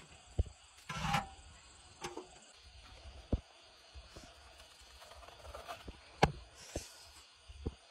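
Food-handling knocks and scrapes: a woven bamboo cover lifted off a wok, then a knife cutting and knocking through steamed luffa gourd and eel on a bamboo tray. A string of separate sharp knocks, the loudest about six seconds in, with a longer scraping sound about a second in.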